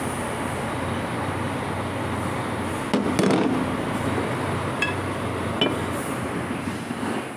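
Broken metal pieces knocking and clinking together as they are handled on a concrete floor: a clatter about three seconds in, then two short ringing clinks, over a steady background noise.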